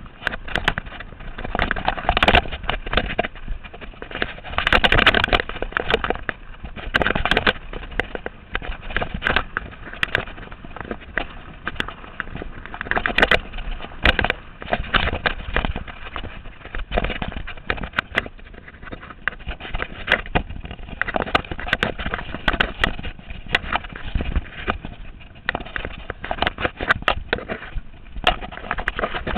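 Mountain bike descending a rough dirt and rock trail: tyres crunching over the ground and the bike rattling and clattering on every bump, in a fast irregular stream of knocks.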